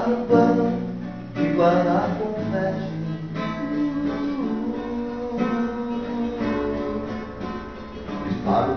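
Acoustic guitar strummed in chords, a fresh strum about every second or two, with a man's voice singing along in places.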